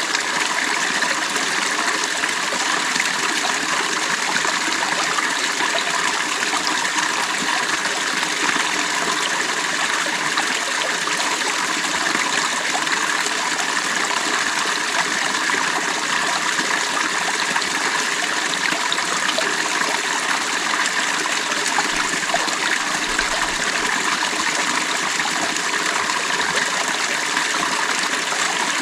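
Shallow creek water flowing and babbling steadily over stones.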